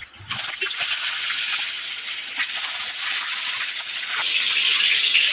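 Masala-marinated fish frying in hot oil: a steady sizzling hiss with small pops and crackles, growing a little louder near the end.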